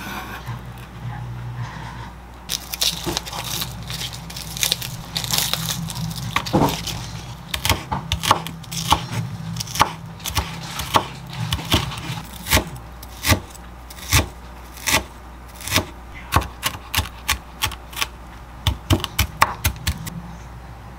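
Chef's knife cutting bacon on a wooden cutting board, the blade knocking sharply on the board, first irregularly, then about once a second, then in a quick run of chops near the end. A low hum runs under the first half.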